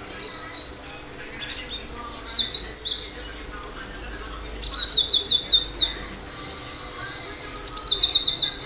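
Cinereous tit (gelatik batu) singing: three bursts of sharp, rapidly repeated high notes, each about a second long, with pauses between them.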